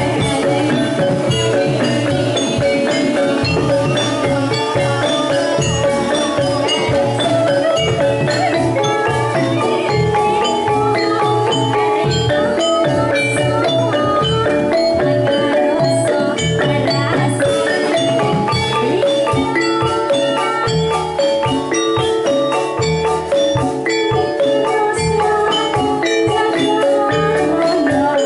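Javanese gamelan music: metal-keyed mallet instruments play the melody over a busy beat on hand-played kendang drums, steady and loud.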